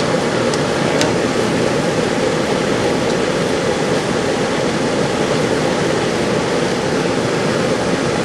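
Packaged air-conditioning unit running steadily with its newly replaced compressor: an even rush of the condenser fan and compressor, running normally after start-up.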